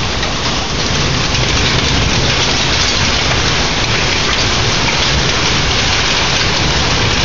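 Heavy thunderstorm downpour: rain falling hard and steadily on surfaces, an even hiss with no let-up.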